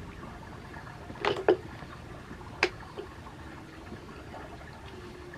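Wet mouth sounds of a man eating rice by hand: a few short smacks and clicks, bunched about one to three seconds in.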